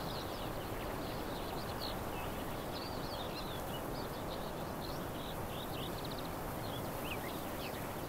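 Small songbirds chirping and trilling in quick, overlapping phrases over a steady background hiss of open-air ambience.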